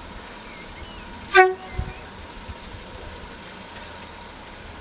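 A single short toot of a railway whistle at one clear pitch about a second and a half in, over the steady running noise of a moving train, with a low knock just after.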